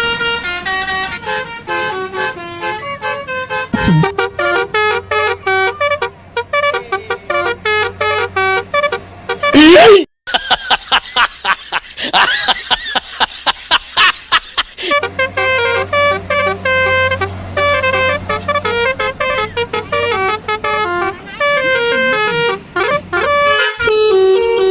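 Telolet-style musical bus horn playing a tune in short stepped notes, with a wavering, siren-like warble in the middle.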